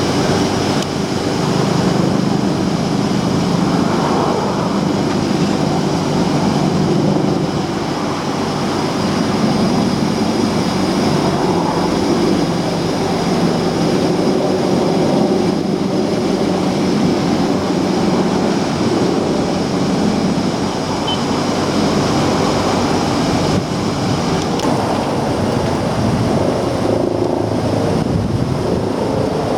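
Sanyo R22 280-class packaged air conditioner running in heating mode: a steady rush of air with a low, even mechanical hum.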